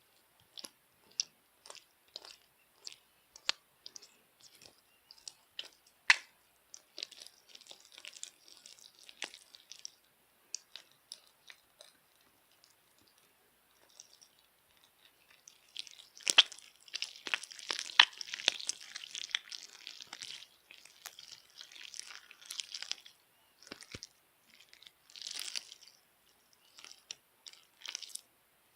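Firm slime being squeezed and pressed by hand, making sharp clicking pops at first. Later comes a dense run of crackling and squelching.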